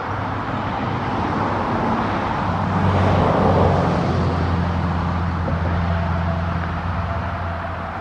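Road vehicle noise: a steady low engine hum throughout, with a passing vehicle swelling loudest about three to four seconds in and then fading.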